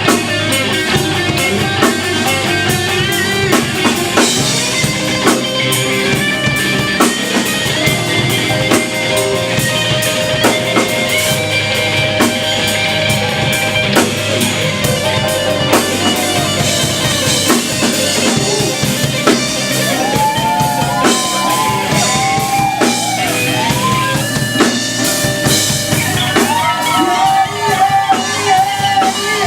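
Live rock band playing a song: drum kit keeping a steady beat under guitar. From about two-thirds of the way in, a lead line with bending notes comes up above the band.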